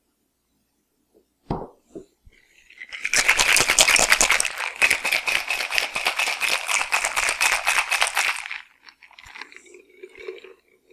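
Stainless steel cocktail shaker being shaken hard for about five seconds, its contents rattling rapidly against the metal. A short knock comes about a second and a half in, before the shaking starts.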